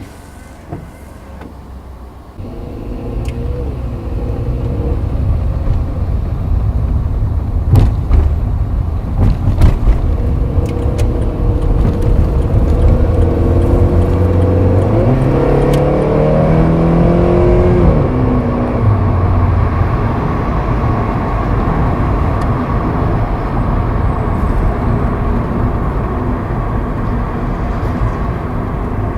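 Inside the cabin of a VW Polo Sedan pulling away and driving on. The engine note climbs and then drops back. A few sharp knocks come about eight to ten seconds in as the wheels cross raised rails, knocks that the owner attributes to the steering rack and strut mounts.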